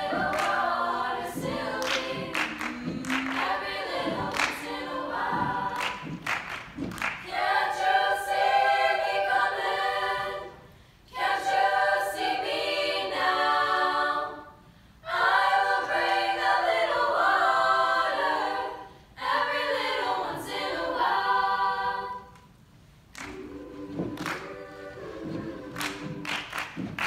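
Treble choir of young women singing a cappella, with rhythmic claps and chest pats as body percussion in the first few seconds and again near the end. In the middle the voices sing sustained phrases alone, broken by four short pauses.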